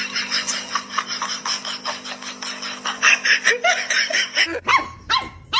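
A dog barking and yipping in quick, short calls, loudest and most distinct in the last second or so.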